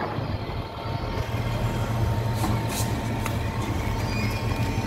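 Heavy diesel engine running steadily with a low drone, amid road-construction and traffic noise.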